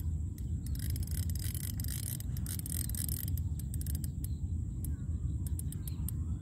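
Wind buffeting the microphone in a steady low rumble, with irregular sharp clicks scattered through it.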